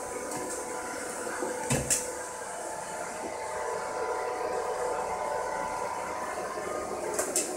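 Robot vacuum cleaner running, a steady whir from its motor and brushes, with a couple of brief clicks about two seconds in and near the end.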